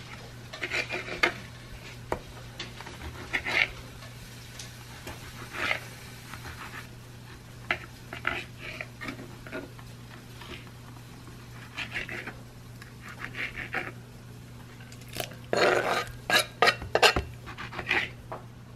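Kitchen knife slicing and chopping fresh tomatoes on a wooden cutting board: scattered cuts, then a quick run of chops near the end, over a steady low hum.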